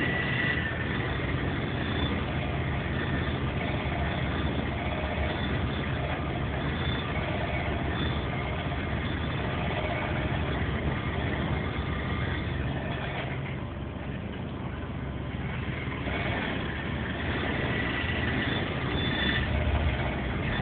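Bottles vibrating and buzzing against each other, driven by a steady, engine-like low hum that eases for a couple of seconds past the middle.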